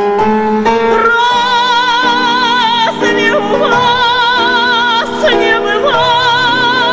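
A woman's voice singing long, held notes with a strong vibrato, over grand piano accompaniment.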